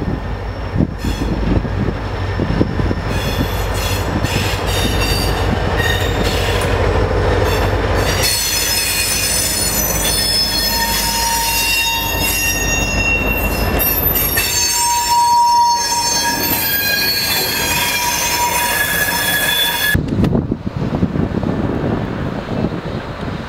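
Vermont Rail System freight train passing close: the diesel locomotive's engine rumbles by, then the freight cars roll past with their wheels squealing against the rails in high, held tones. Near the end the sound cuts abruptly to wind on the microphone.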